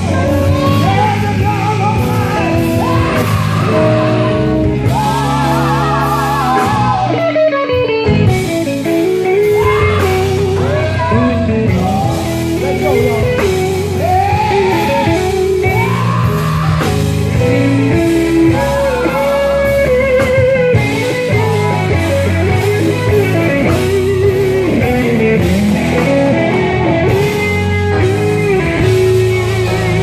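Live gospel singing: a man's lead vocal with a wide, wavering vibrato over an amplified band with electric guitar and bass.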